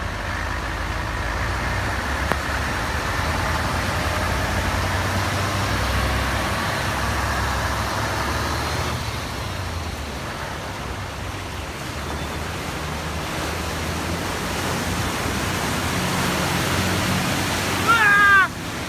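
Coach and lorry engines running as they drive slowly through deep floodwater, with the steady rush and splash of water pushed aside by their wheels. A short cry from a voice near the end.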